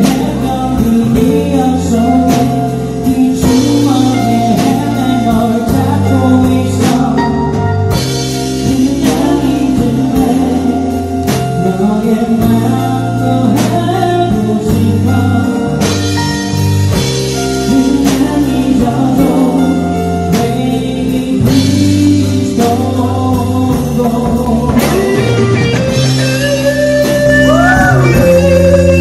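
Live rock band cover of a Korean pop song: a male singer over electric guitars, bass guitar, drum kit and keyboard. Near the end the voice drops out and an electric guitar takes over with bending notes.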